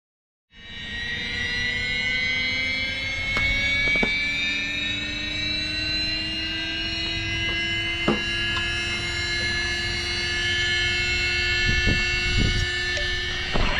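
Losi Promoto MX RC motorcycle's electric motor and drivetrain whining, several high tones slowly rising in pitch over a low rumble, with a few light knocks. It starts about half a second in and grows louder near the end.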